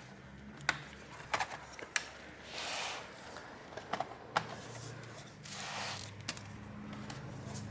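Small scattered clicks and taps with a couple of short rustles, from small screws and laptop parts being handled during reassembly.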